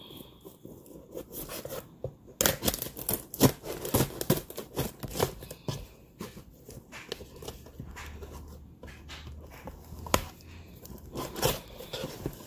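Scissors snipping and scraping through the packing tape and cardboard of a shipping box, a run of quick irregular cuts and tearing that starts a couple of seconds in.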